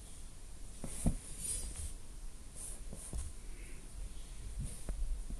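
Quiet room tone with a few soft, scattered knocks and rustles.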